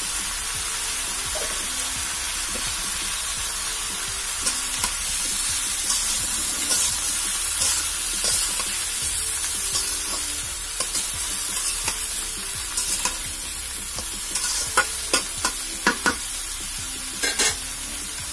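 Sliced bottle gourd and potatoes sizzling in hot oil in a karai. A spatula scrapes and clicks against the pan as they are stirred, more often near the end.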